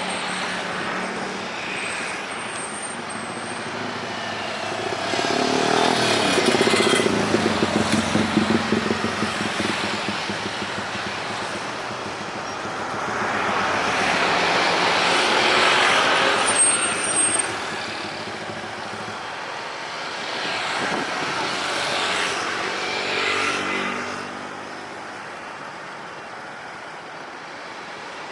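Road traffic going by: several vehicles pass one after another, the loudest with a pulsing rumble about six to nine seconds in, then a broad swell of noise about fourteen to sixteen seconds in and a smaller one near twenty-two seconds.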